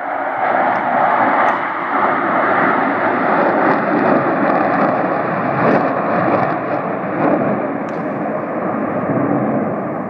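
Jet noise from the Blue Angels' four F/A-18 Hornets flying in diamond formation: a steady, loud rushing sound without clear tones, easing slightly near the end.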